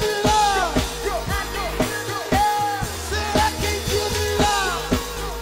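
Live band playing a hip-hop song: drum kit and red semi-hollow-body electric guitar over a steady low bass, with sung vocal phrases gliding in pitch on top.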